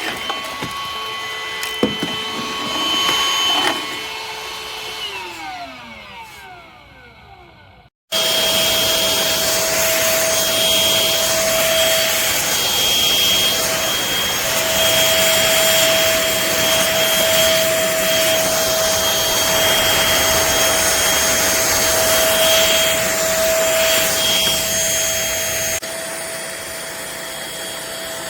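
Trucozie cordless stick vacuum motor running, then switched off and winding down with a falling pitch. After a brief break it runs again steadily with a high whine, dropping a little quieter near the end.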